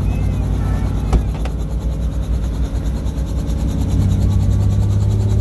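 Robinson R44 Raven I helicopter's piston engine and rotor running steadily on the ground, a deep even drone that grows a little stronger about four seconds in. A single sharp knock sounds about a second in.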